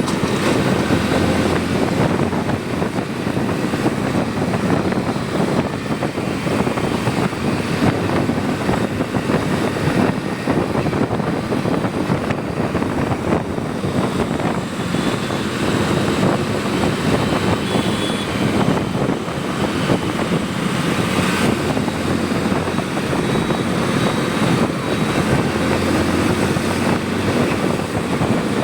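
Motorcycle running steadily on the move, a continuous engine drone mixed with road and wind noise on the microphone.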